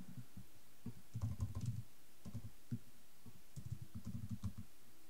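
Typing on a computer keyboard: two short runs of quick key clicks, with a few single clicks between.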